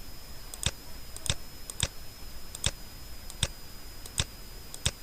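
About seven separate sharp computer mouse clicks at uneven intervals, as faces are selected in the software, over a faint steady high-pitched electrical whine.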